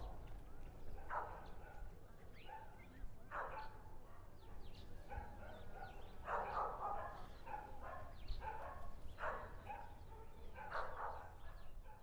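An animal calling in short, repeated bursts, about seven times at uneven intervals, two of them close together near the middle. Faint small-bird chirps run underneath.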